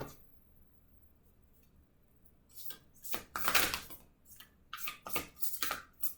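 Oracle cards or paper being handled, rustling and tapping in two short spells starting about two and a half seconds in.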